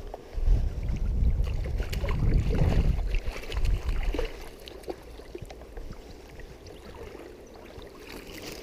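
Irregular low rumbling buffeting on the microphone for about the first four seconds, then a quieter stretch of faint stream water with a few small clicks.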